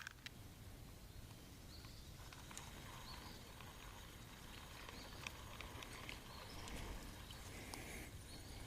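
Faint outdoor background with a few sharp clicks at the start and light scattered ticks and handling noises after.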